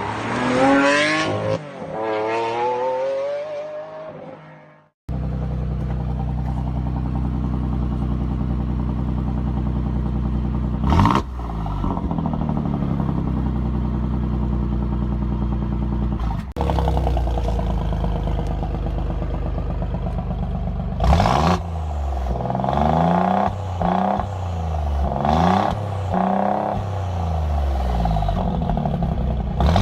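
High-performance car engine revving up and down, then after a short break a steady idle. The idle is broken by two sharp throttle blips, then by a series of quick revs rising and falling about once a second near the end.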